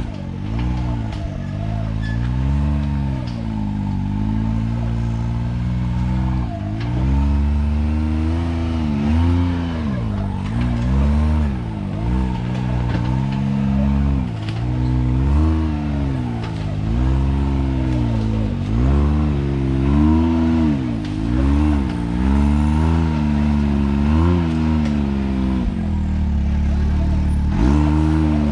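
Can-Am Maverick X3 side-by-side's turbocharged three-cylinder engine blipped up and down about once a second in short revs as it crawls slowly over rocks.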